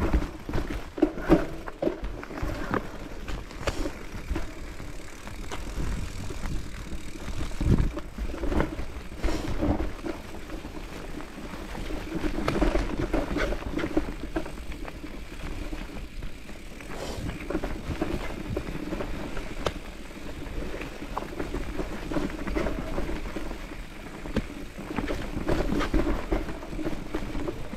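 Mountain bike riding over a rough natural trail: a continuous rumble of tyres on dirt and rocks, with many small knocks and rattles from the bike.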